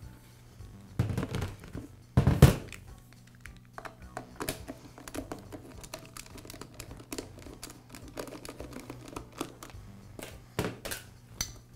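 Heavy electric motor being turned over and set down on a metal workbench, with two loud thunks about one and two and a half seconds in. Then a long run of small clicks and scrapes as a nut driver works the screws of the motor's side cover, and a knock near the end as the tool is put down.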